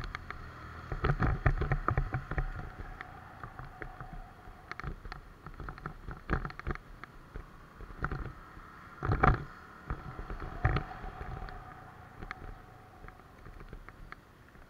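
Motorcycle rolling slowly over cracked pavement and a broken curb, its engine a faint steady hum under clusters of knocks and rattles as it jolts over the bumps; the loudest jolts come about a second in and again around nine and eleven seconds.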